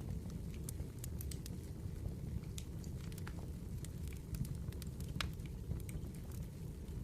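Firewood burning, crackling with frequent irregular sharp pops over a steady low rumble.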